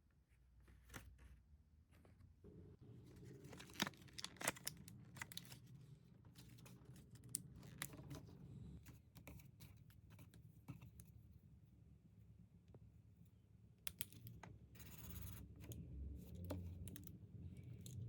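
Quiet handling sounds in a small room: scattered light clicks and taps, with a brief rustle about fifteen seconds in, over a low steady hum.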